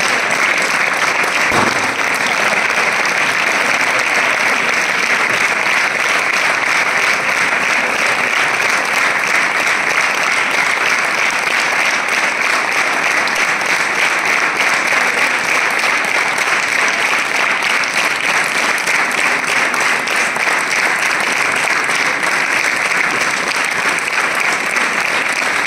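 Audience applauding: sustained, steady clapping from a crowd that runs on without a break.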